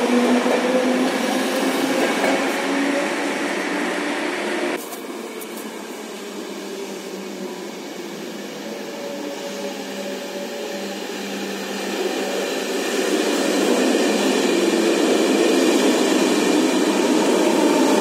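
ÖBB S-Bahn electric multiple unit (class 4020) moving along a platform with its traction motors whining over the rumble of the wheels; after a sudden cut about five seconds in, another such train enters an underground station, its whine and rumble growing louder as it draws in alongside.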